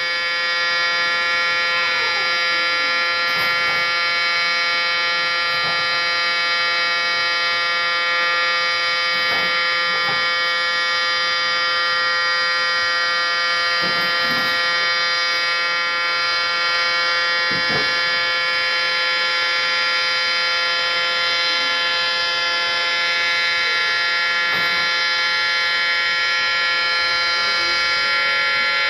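Outdoor warning siren sounding a steady tone rich in overtones, held at one pitch and level without rising or falling.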